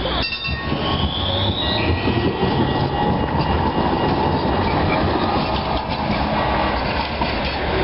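Alstom Citadis low-floor tram passing close by: a steady running rumble of wheels on rail and drive, with thin high tones over it, one rising briefly about a second and a half in.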